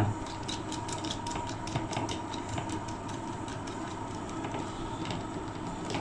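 Small, irregular clicks and scrapes of a screwdriver turning a terminal screw to clamp a wire into a miniature circuit breaker, over a steady background hiss with a faint thin hum.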